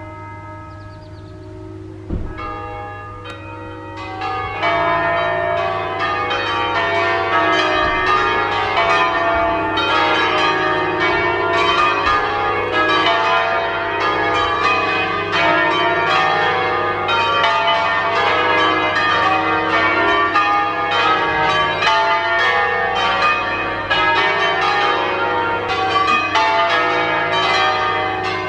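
A peal of eight swinging church bells tuned in E-flat. The bells come in one after another over the first few seconds, and then all ring together in a dense, continuous full peal.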